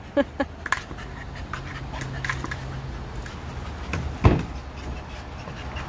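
A tired dog panting while it noses a rubber ball around, with a single sharp thump about four seconds in.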